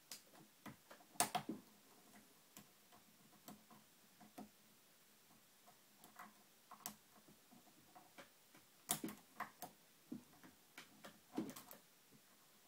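Faint, irregular metallic clicks and taps of a lock pick and tension wrench working the spring-loaded mushroom security pins inside a TrioVing oval pin-tumbler cylinder, with small clusters of clicks about a second in, around nine seconds and near the end.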